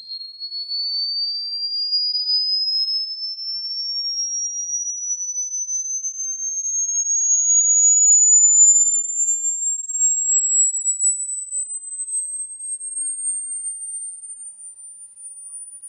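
A single pure electronic sine tone, very high-pitched, sweeping slowly and steadily upward in pitch: a synthetic sweep played as a rodent-repellent sound. It starts abruptly and grows fainter near the end.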